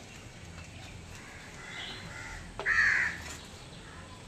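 A crow cawing once, a single harsh call about half a second long, some two and a half seconds in.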